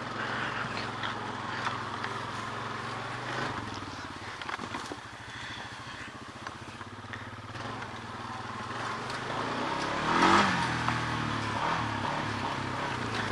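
Honda ATV engine running at low speed, with a short rev about ten seconds in.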